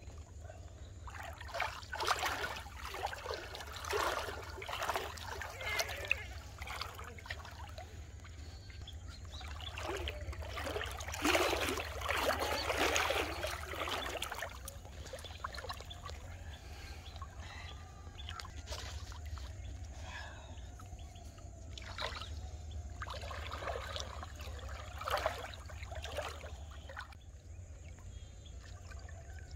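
River water splashing and sloshing around a wading man as he rocks and drives a wooden pole into the riverbed, in three spells, the loudest about a third of the way in. A steady low hum runs underneath.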